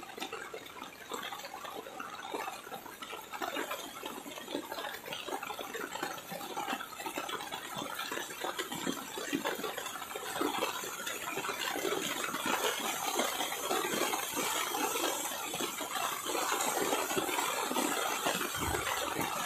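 Koshi River in high flood rushing through the barrage's open gates, mixed with heavy rain: a steady rushing roar of water that grows gradually louder.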